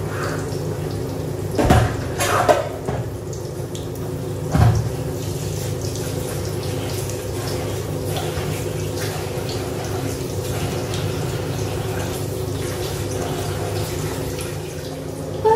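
Water running steadily at a kitchen sink over a constant low hum, with three short knocks of dishes or utensils in the first five seconds.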